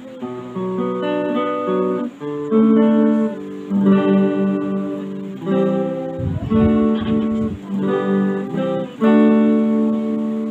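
Old Stratocaster electric guitar, freshly tuned, strummed in a clean tone: a run of chords, each left to ring out with long sustain before the next.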